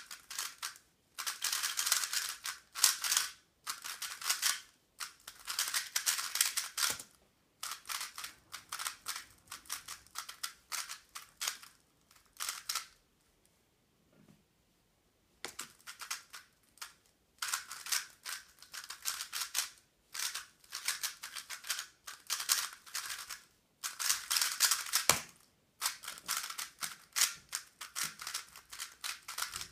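A 3x3 speed cube being turned very fast: bursts of rapid plastic clicking and clacking a few seconds long, broken by short pauses, with a longer quiet gap about halfway through.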